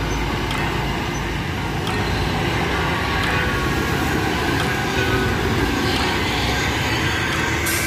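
Steady rumble of road traffic passing close by on a busy street: trucks, a bus, cars and motorbikes driving past.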